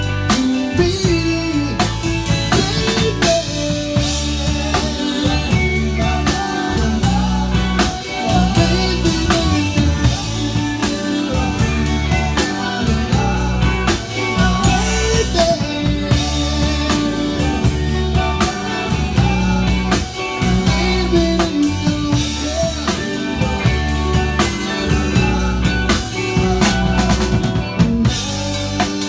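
Live band playing with electric guitars and a drum kit, with a steady drum beat and repeating bass notes.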